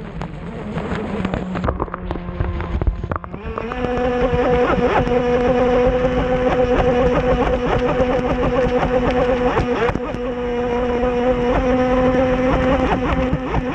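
Zippkits 21GT RC boat's Leopard 4074 brushless electric motor and prop running on the water: an uneven lower whine that steps up about three and a half seconds in to a steady, higher whine. Choppy water slaps against the hull throughout.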